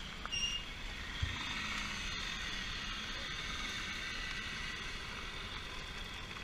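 Moped and small motorcycle engines running at low speed as riders pull up and stop, with a short high beep about half a second in.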